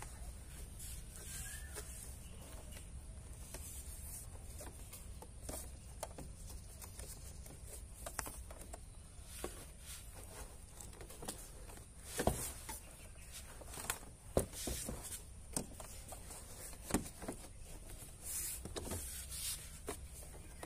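Scattered light clicks and a few sharper knocks from hands working on a car door's interior trim panel, over a low steady rumble.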